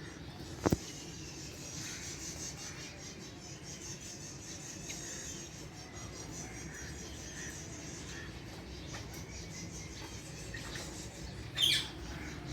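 A female Alexandrine parakeet gives one short, shrill squawk near the end, over a steady low background hum. A single sharp click sounds about a second in.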